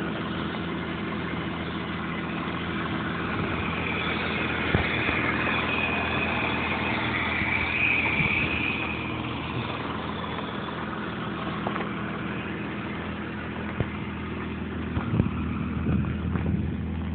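Holden VS Commodore's engine idling steadily, with a few light knocks over it.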